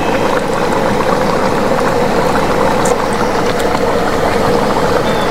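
A pot of fish curry bubbling steadily at the boil, nearly done: a dense run of small pops and bubbles over an even hiss.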